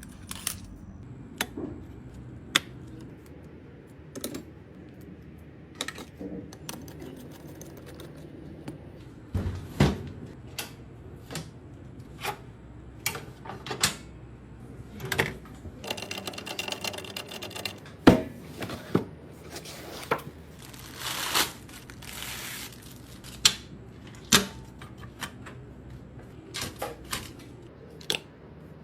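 Clicks, taps and knocks of computer parts and screws being handled and fitted into a PC case, with a short rapid rattling about halfway through and a brief rustle soon after.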